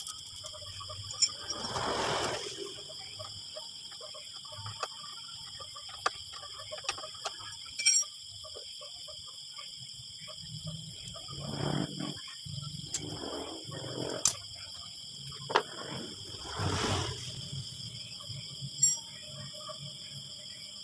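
Scattered sharp metal clinks and short scraping rustles as a motorcycle's exhaust muffler and a homemade silencer insert are handled, over a steady high-pitched background whine.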